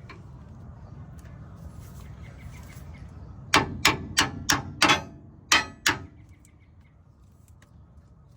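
Hammer striking metal: about seven sharp, ringing blows in quick succession, roughly three a second, about halfway through.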